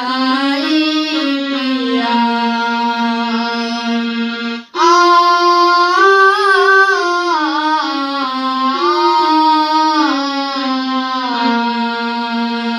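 A boy singing a slow song to his own electronic keyboard accompaniment, in long held notes that step from one pitch to the next. The sound cuts out for an instant a little over a third of the way in.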